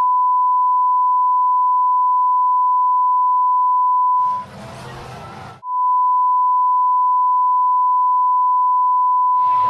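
A loud, steady 1 kHz censor bleep laid over the recording, breaking off for about a second midway, where the noise of the crowd in the stands comes through, then resuming.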